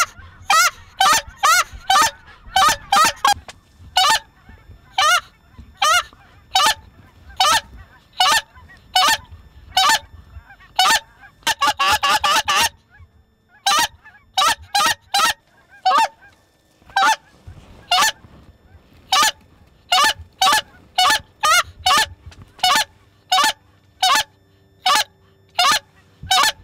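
Canada goose calls blown by hunters in a steady string of loud, short honks, about one to two a second, with a quick run of rapid clucks about twelve seconds in: calling to bring circling flocks of Canada geese in over the decoys.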